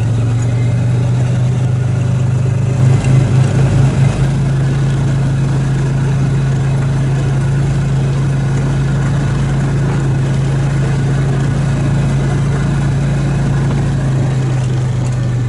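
Engine of a Ranger utility vehicle running steadily under way, with a strong low hum. About three seconds in, the sound briefly pulses unevenly for about a second and a half.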